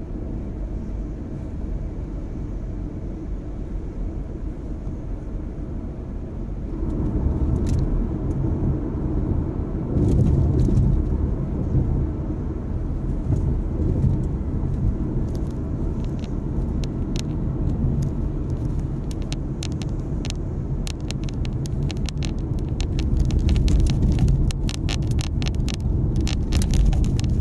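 Road noise heard inside a moving car's cabin: a steady low rumble of tyres and engine that grows louder about seven seconds in and again about ten seconds in. Light, rapid clicking joins it in the last several seconds.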